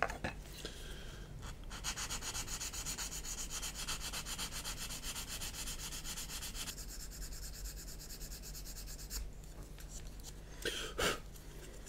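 Quick, even back-and-forth sanding of a styrene plastic model part, taking off small molded extensions. The strokes stop about nine seconds in, followed by a couple of light clicks.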